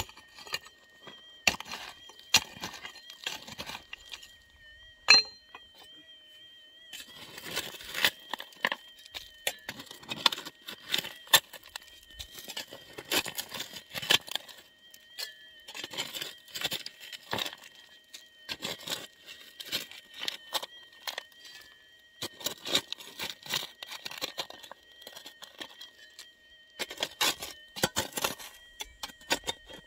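Small steel-bladed shovel digging into stony, gravelly soil: irregular scrapes and clinks of the blade against rocks and loose stones, with one louder click about five seconds in.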